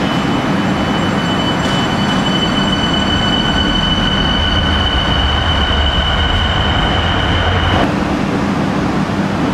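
Qingdao Metro Line 13 SFM49 electric train pulling out of a station: a steady high whine over a rumble that builds as the train gathers speed. The whine stops abruptly near the end and a different, steadier train noise follows.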